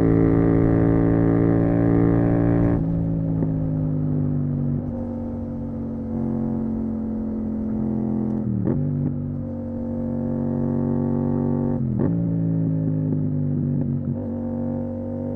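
Yamaha MT-07's parallel-twin engine through a full Akrapovic titanium exhaust, heard onboard while riding. The note eases abruptly about three seconds in as the throttle closes, then runs at a lower, steady pitch with two brief breaks a few seconds apart.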